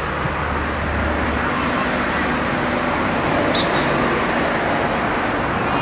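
Steady outdoor background noise like road traffic, with a low rumble in the first second or so and faint distant voices.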